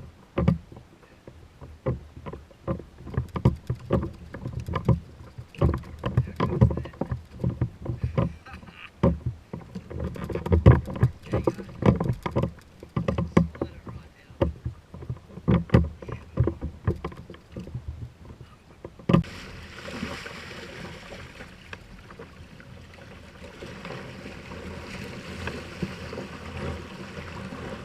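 Irregular knocks and thumps on and around a kayak, several a second. About two-thirds of the way through they stop and give way to a steady rush of water and wind.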